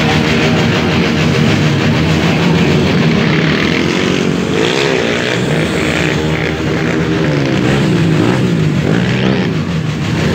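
Motorcycle engine running and revving up and down as a rider wheelies a small dirt bike past, over loud rock-style music.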